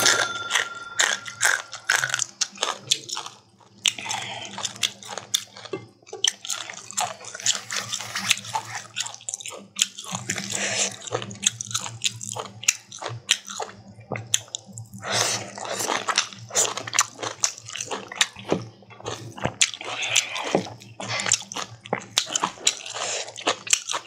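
Close-miked eating: biting and chewing of cooked long beans and lai xaak mustard greens with rice, a dense run of quick mouth clicks and smacks. A short steady tone sounds near the start.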